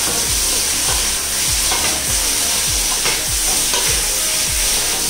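Chicken pieces frying in mustard oil in a stainless steel pan, sizzling steadily, while a spatula stirs and scrapes them around the pan in regular strokes, about two or three a second.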